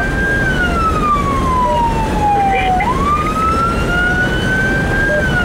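Fire department vehicle's siren sounding a wail, heard from inside the cab. The tone climbs, then falls slowly, about once every five seconds, over the rumble of the engine and tyres.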